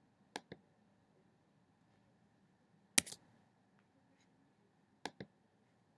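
Computer mouse clicked three times, each click a quick press-and-release pair: about half a second in, about three seconds in (the loudest), and about five seconds in.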